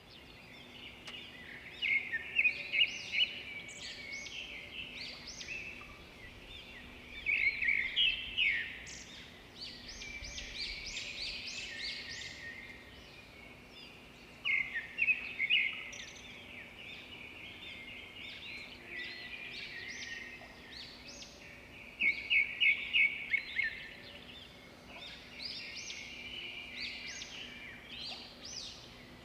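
Wild birds singing and calling in woodland: short, high chirping notes, with louder bursts of quick repeated notes about four times.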